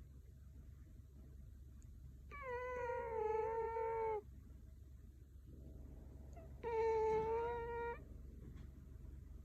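Scottish Fold cat snoring in its sleep: two long, high, whistling snores about four seconds apart, the first a couple of seconds in and the second in the latter half, with soft breathing between them.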